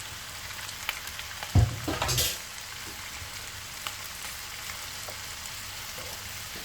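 Chicken pieces frying in hot oil with ginger-garlic paste: a steady sizzle, with a thump and clatter about one and a half seconds in.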